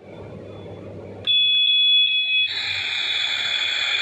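Toy kitchen stove's electronic sound effects: a steady beep starts about a second in and lasts just over a second, then gives way to a steady electronic hiss, the toy's cooking sound, as its burner lights up.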